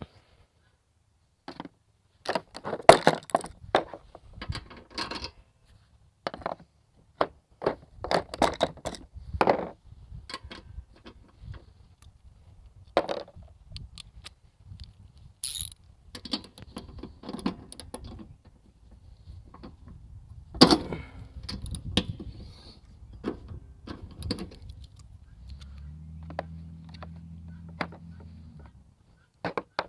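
Metal tools and mower-deck parts clinking, clanking and knocking at irregular intervals during hands-on repair work. A low steady hum joins in for about three seconds near the end.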